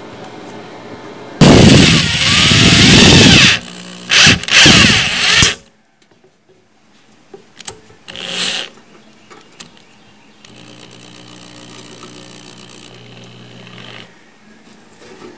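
Cordless drill with a bit holder driving the centre fastener of a steel damper disc into sheet metal. There is one long, loud run of about two seconds with the motor pitch sweeping up and down on the trigger, then two short bursts, and later a quieter, steadier run.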